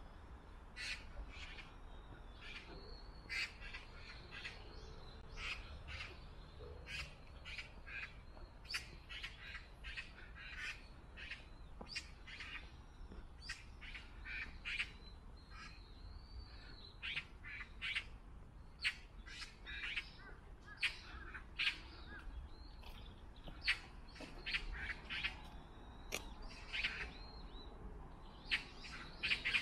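Many birds calling at once: a dense run of short, sharp calls, some with arching up-and-down notes, overlapping throughout.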